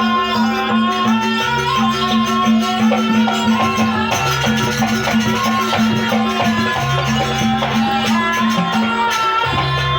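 Live music from a jaranan ensemble: a low two-note figure repeating about every two and a half seconds, a melodic line wavering above it, and steady percussion strikes.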